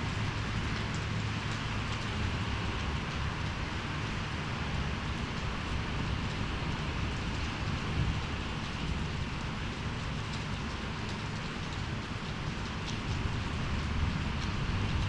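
Heavy rain pouring steadily in a storm, with scattered drops ticking and a low rumble underneath throughout.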